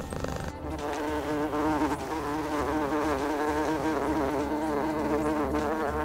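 Buzzing of a small flying insect, the animated glowing bug: a wavering drone that swells about a second in and keeps wobbling in pitch.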